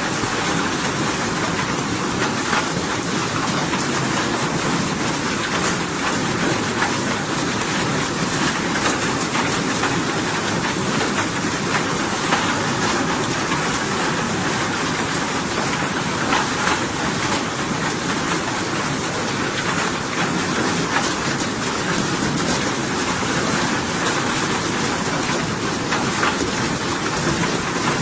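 Steady rain, an even dense hiss with faint scattered drop ticks, unchanging throughout.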